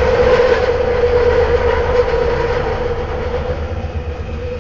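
Kelana Jaya Line LRT train heard from inside the car while running on elevated track: a steady whine over a low rumble of wheels on rail, getting a little quieter toward the end.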